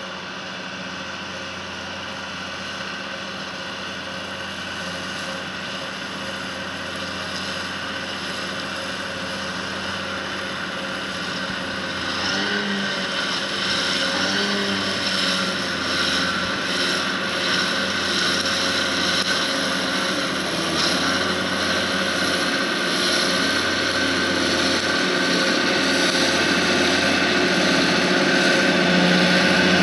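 John Deere tractor running steadily under load while driving a side-mounted disc mower through grass, the engine drone and mower whine growing louder as it comes closer.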